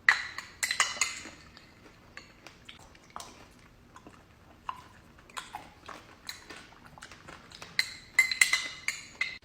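Clinking and tapping of cutlery and dishes in irregular clusters of short, sharp clicks, thickest at the start and again near the end.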